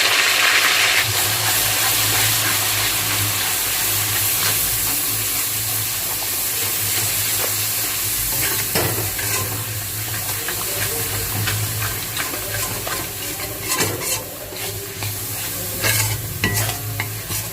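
Onion paste sizzling in hot oil and ghee in a kadai, loudest in the first second after it goes in, while it is stirred, with a few sharp knocks of the stirring utensil against the pan in the second half.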